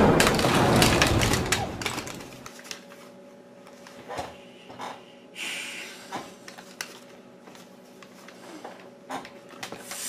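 A sudden loud crackling, crunching noise that fades away over about two seconds, followed by scattered faint clicks and knocks.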